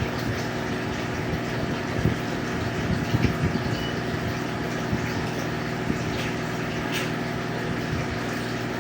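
Water pump humming steadily with a constant wash of moving water, and a few light clicks about three seconds in and near seven seconds.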